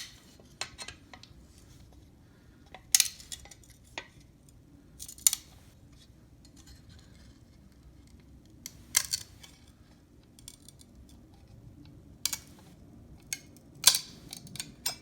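Scored glass sheet cracking sharply under Silberschnitt glass running pliers, several times a few seconds apart, as each squeeze runs the score a little further along a curved line.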